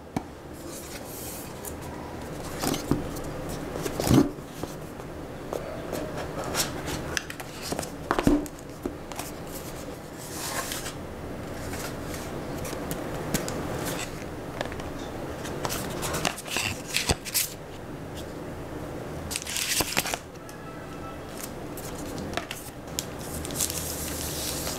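Handling noise from unboxing a smartphone: a cardboard box and lid sliding, tapping and scraping on a table, with paper and plastic wrap rustling as the contents are pulled out. There are a few louder knocks in the first third.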